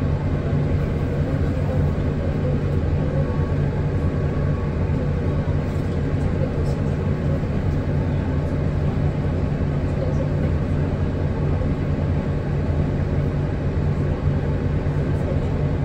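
Inside a Hino Blue Ribbon City Hybrid city bus: a steady low drive-train drone with road and cabin rumble and a few faint rattles.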